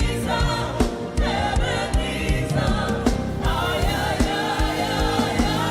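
Gospel worship music: a choir singing over a live band with a steady drum beat.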